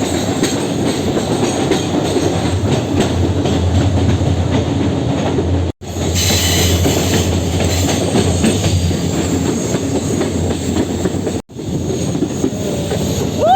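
Passenger train running on rails, wheels clattering over the track, with a brief high wheel squeal about six seconds in. The sound cuts out abruptly twice.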